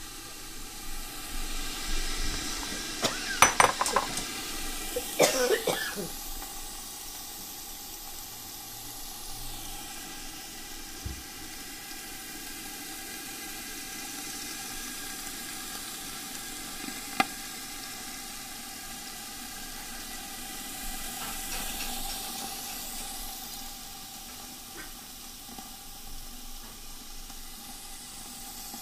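Pork chops sizzling steadily in a covered electric grill skillet, broken about three and five seconds in by two short, loud noises.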